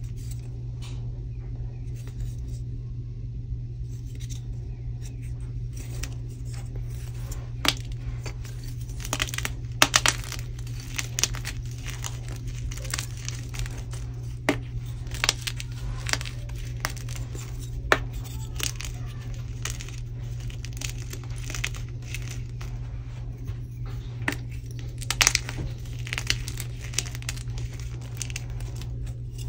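A dyed blue gym chalk block crushed by hand into a heap of broken chalk. It crunches and gives sharp cracking snaps as it breaks, few at first and many from about eight seconds in, over a steady low hum.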